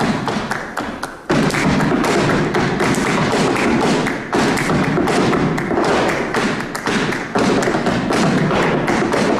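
Flamenco palmas and zapateado: a fast run of sharp hand-claps and heel strikes on a stage floor. It dies down about a second in, then comes back in sharply, with brief dips near four and seven seconds.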